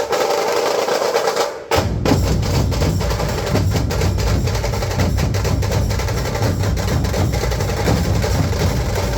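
Dhol-tasha drumming: sharp, rapid strokes on the tasha, joined by the deep beat of the dhols coming in loud about two seconds in.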